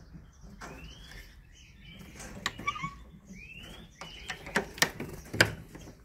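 Canaries calling: a few short rising chirps, plus several sharp clicks and knocks in the second half, the loudest near the end.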